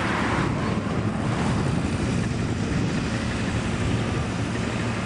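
CSX freight train's diesel locomotive running as it rolls slowly toward the crossing: a steady low rumble, with wind noise on the microphone.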